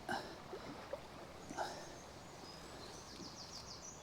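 Small bird singing high, quick notes, ending in a rapid trill near the end, over the steady wash of river water. Two brief sharp sounds are louder, just at the start and about halfway through.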